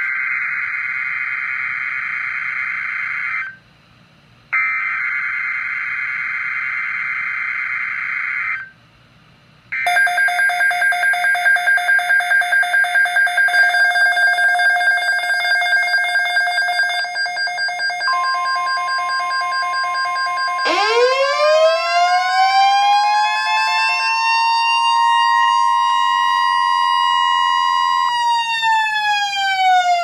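NOAA Weather Radio emergency alert for a severe thunderstorm watch. It opens with two harsh, buzzy SAME digital header bursts of about four seconds each. Then the weather-alert receivers set off their alarms: fast-pulsing beeps from about ten seconds in, a steady high alert tone joining a little later, and from about twenty seconds in a siren tone that rises, holds, and starts to fall near the end.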